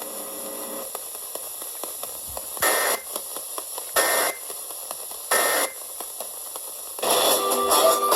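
Radio receiver hiss and static, broken by three short buzzing data bursts about 1.3 s apart: the Emergency Alert System end-of-message code that closes the warning broadcast. A louder noise comes in about a second before the end.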